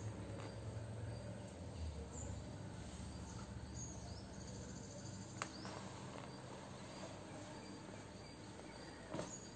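Faint background ambience: a steady high insect-like chirring over a low hum, with a few soft clicks and a rustle from the book being handled.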